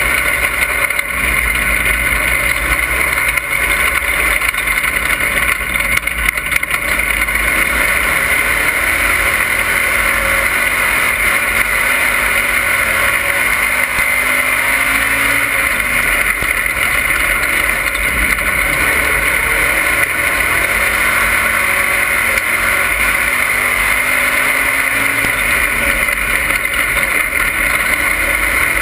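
Dirt-track race car's engine running hard, heard from inside the cockpit as a loud, steady din of engine and wind noise. Its pitch rises and falls every several seconds with the throttle through the turns.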